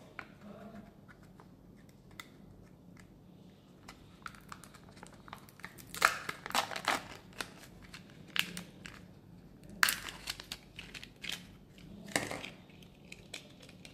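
Kinder Joy egg's thin plastic-foil seal being peeled back and its wrapping crinkled in the hands. The sound comes in bursts of crackling and tearing, loudest about six seconds in and again about ten seconds in.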